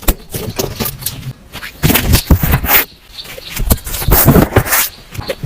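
Irregular scraping, rustling and clicking of objects being handled, with louder clusters of scrapes about two seconds in and again near the end.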